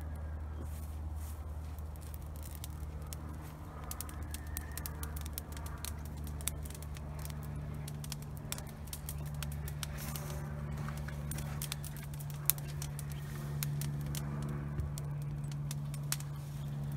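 Burning walnut-branch brush pile crackling with sharp, irregular snaps that thicken from about four seconds in, over a steady low engine hum.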